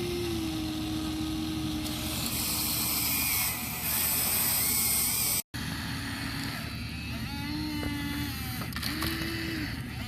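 Electric motors and plastic gearboxes of a Huina toy RC excavator whining in short spurts as its functions are worked, over a steady background hum. The audio cuts out briefly about halfway through.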